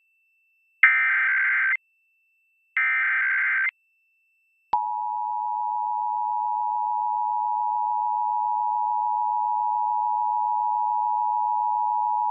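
Emergency Alert System SAME header: the last two of the three buzzy digital data bursts, each about a second long with a second between them. After a short gap, the steady two-tone EAS attention signal starts about five seconds in and holds, announcing a required monthly test.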